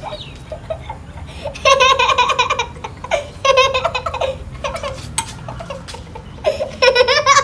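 Young girls laughing in three bursts of giggling, about two, three and a half and seven seconds in.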